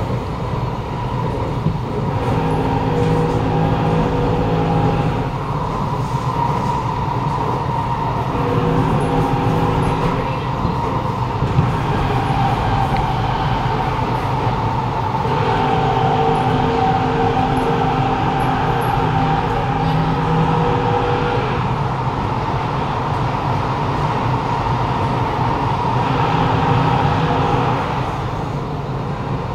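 Kawasaki Nippon Sharyo C751B metro train running between stations, heard from inside the car over its motors, with a steady rumble of wheels on track and a constant high whine. A layered motor hum comes and goes in stretches of a few seconds. This is the strong 'robotic' motor and vibration sound of this car.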